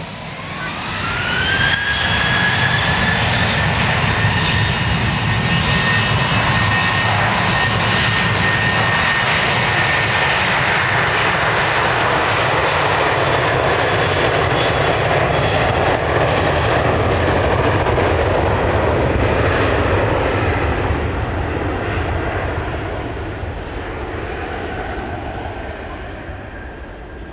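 Boeing 737-800's CFM56-7B turbofan engines spooling up to takeoff thrust: a whine rises over the first two seconds and settles into a steady high tone over a loud, dense rumble. It holds through the takeoff roll, then fades over the last several seconds as the jet moves away down the runway.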